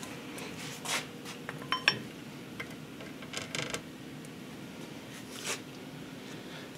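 Steel connecting rod being hung on a balancing fixture over a scale: a few light metal clicks and clinks as it is handled and set in place, one with a brief ring.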